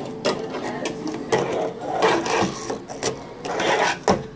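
Tech Deck fingerboard rolling and grinding on a wooden table and ramp: a rattling roll of the small wheels, broken by several sharp clacks as the deck pops and lands.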